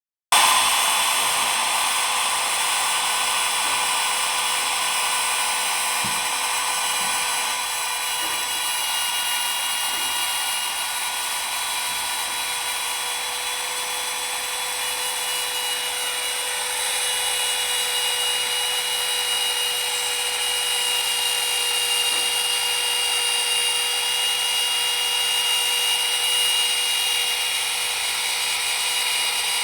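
Small high-speed power tool, such as a rotary tool or mini drill, running steadily while cutting a round shape, a continuous high whine with a hissy edge.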